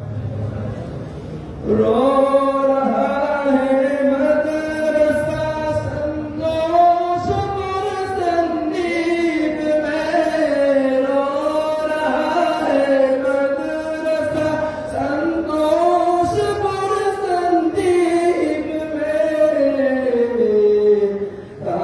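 A male singer's voice singing an Urdu qasida (Islamic devotional song) without instruments, in long, ornamented melodic phrases. It is softer at first and comes in at full voice about two seconds in, dipping briefly near the end.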